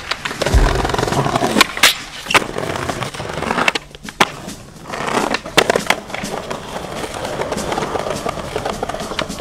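Skateboard wheels rolling over concrete and paving, broken by several sharp clacks of the board being popped and landing.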